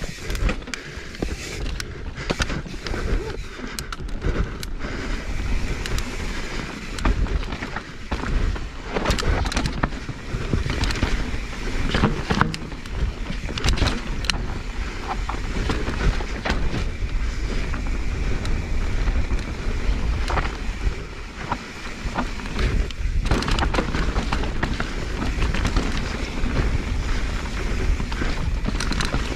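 Mountain bike riding fast down a rocky dirt singletrack: tyres rolling and crunching over dirt and rock, with frequent sharp knocks and rattles from the bike as it hits bumps. A steady low rumble of wind on the microphone runs underneath.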